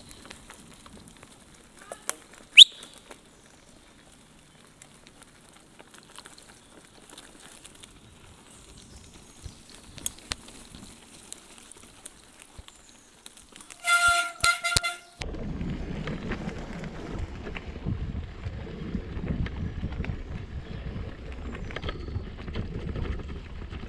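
Mountain bike rolling along a wet forest dirt trail: faint clicks and rattles, a sharp rising squeak about two and a half seconds in, and two short high toots a little past the middle. Then the sound switches abruptly to a steady low rumble of wind on the microphone and tyres on the dirt.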